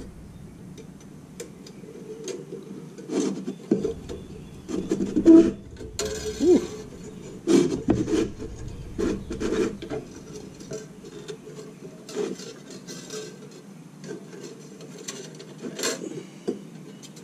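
Nichrome wire being threaded and pulled through the metal cutter grid of an ice maker: irregular scraping and rubbing, with sharp clicks of wire against metal.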